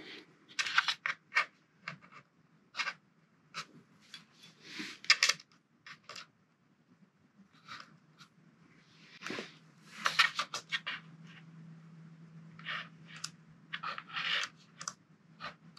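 Small washers and hardware being handled and set over bolt holes on an RC truck chassis: scattered light clicks, taps and scrapes.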